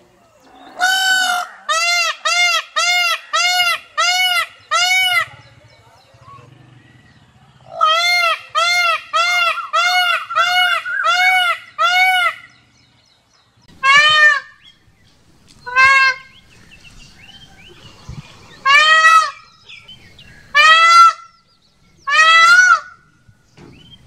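Male Indian peafowl (peacock) calling loudly: two fast runs of short calls, each lasting about four seconds, then five single calls spaced about two seconds apart.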